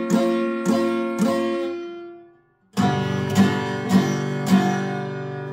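Steel-string acoustic guitar strummed: four even strums of one chord that ring and fade, then after a short break four strums of a different chord, left ringing. The two chords are the F7 and G7 shapes being practised.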